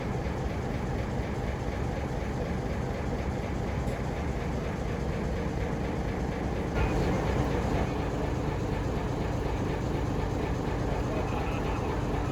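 A heritage diesel train running: a steady mechanical rumble with a constant engine note, briefly louder about seven seconds in.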